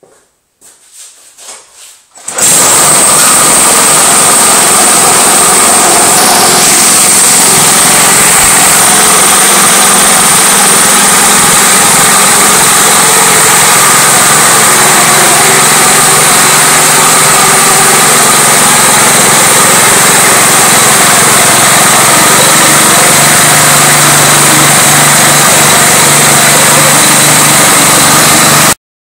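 Small single-cylinder lawnmower engine mounted on an outboard motor leg, running steadily and very loud, with its propeller churning water in a test barrel. It starts abruptly about two seconds in and cuts off just before the end.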